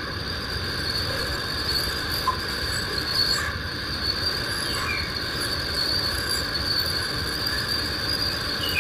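Crickets chirping steadily, a continuous high drone over a low background rumble.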